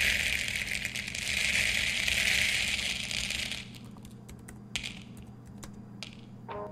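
A dense, high-pitched jingling rattle lasting about three and a half seconds, then a few scattered clicks; a held tone comes in just before the end.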